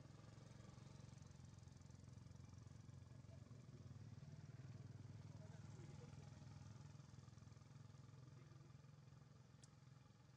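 Near silence with a faint, low engine hum that grows a little louder around the middle and then fades again, like a distant vehicle passing.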